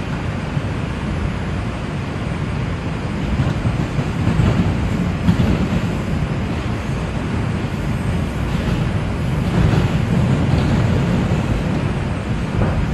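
NYC Subway R142 train running at speed, heard from inside the car: a steady low rumble of wheels on rails with some car rattle, swelling louder a couple of times.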